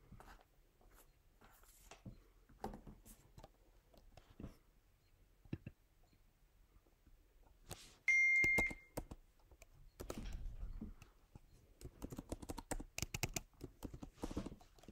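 Scattered small clicks and taps of someone working at a desk, like typing and handling things, with one short high electronic beep a little past halfway. The clicking becomes busier over the last few seconds, with some rustling.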